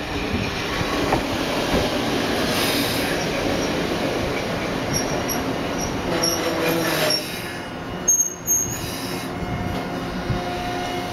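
Eizan Electric Railway train pulling into the platform and braking to a stop: steady running noise of the wheels on the rails with short high squeaks, dropping away about seven seconds in. A brief high squeal comes about eight seconds in, then a faint steady hum while the train stands.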